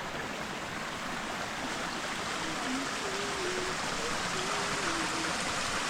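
Steady rush of flowing water, a creek or small cascade, with faint wavering voices partway through.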